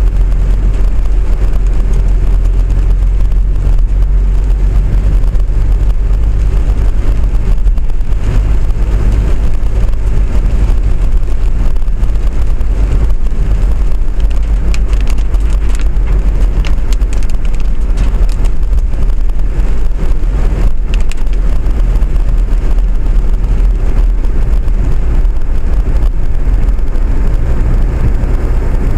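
Steady, loud low rumble of a moving vehicle travelling along the route, with a few faint clicks about halfway through.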